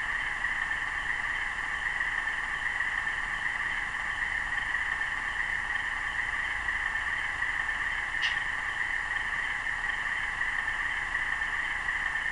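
LokSound Select sound decoder in an Atlas RS-1 model locomotive playing its Alco 244 twelve-cylinder diesel sound at a steady idle through the model's small speaker, thin and without bass. One short sharp click comes about eight seconds in.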